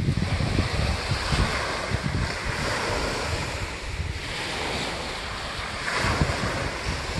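Wind buffeting the microphone in uneven low rumbles, over a steady rush of sea surf and breeze.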